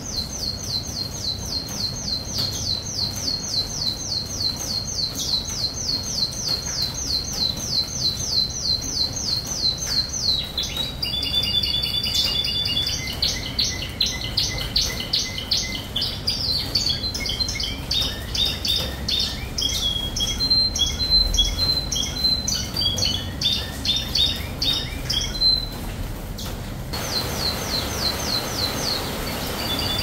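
Canary singing: a long, fast trill of repeated downward-sweeping notes for about ten seconds, then a changing run of trills and held notes, and after a short pause near the end a new trill begins.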